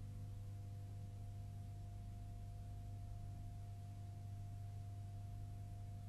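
Faint, steady low hum with a thin higher tone above it and a light hiss, unchanging throughout; no music has started yet.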